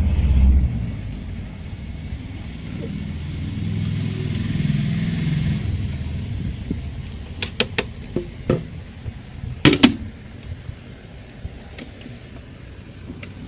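Clicks and knocks of a TVS thermal printer's ribbon and printhead mechanism being handled by hand: a quick run of light clicks past the middle and a louder double knock near ten seconds in, over a low rumble.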